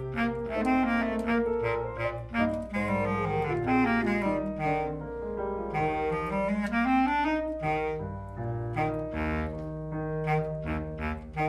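Bass clarinet playing a passage of quick, short notes, with a falling run and then a rising run around the middle.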